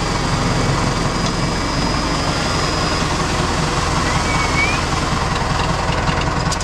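Tractor engine running steadily, heard close up from on board the tractor. A short squeak sounds about four seconds in.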